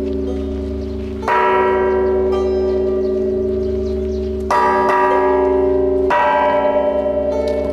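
Large Buddhist temple bell struck three times, each strike ringing on into the next over a steady low hum.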